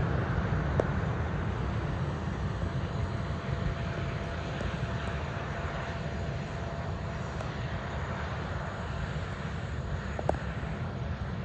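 Boeing 767-300ER's General Electric CF6 turbofan running during engine start: a steady low noise with a faint steady whine. Two short clicks, one about a second in and one near the end.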